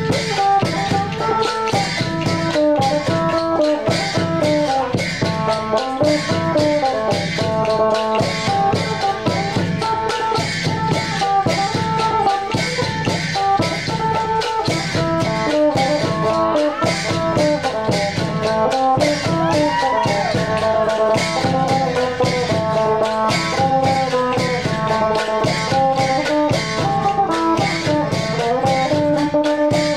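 Isan folk ensemble playing: many pairs of wooden mak kap kaep clappers clacking in a fast, steady rhythm over a plucked phin lute melody and the beat of a large barrel drum.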